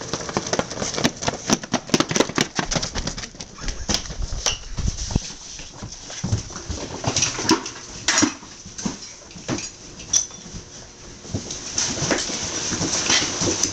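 Firefighters hurriedly pulling on turnout gear: heavy coats and bunker pants rustling, with many sharp knocks and clicks from boots and gear. Near the end it settles into steadier rustling.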